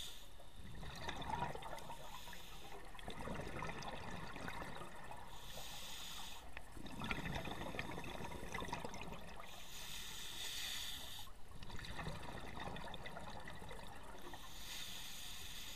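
A scuba diver breathing through a regulator, heard underwater: a hiss of inhaling, then several seconds of bubbling as the exhaled air leaves the regulator. The cycle repeats about three times, a breath every five seconds or so.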